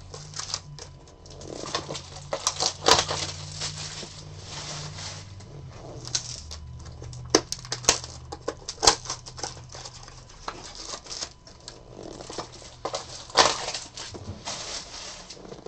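Trading-card boxes and wrapped card packs being handled: cardboard boxes opened and packs pulled out and stacked, with rustling, crinkling wrappers and many short sharp taps and clicks.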